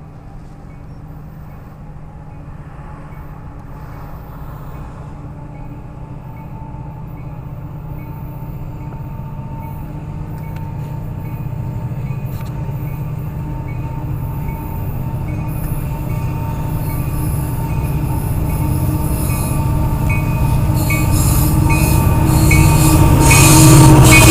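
Diesel freight locomotives, an EMD SD60F leading a GE C40-8M, approaching with their engines droning and growing steadily louder throughout, with wheel and rail noise rising toward the end as the locomotives come close.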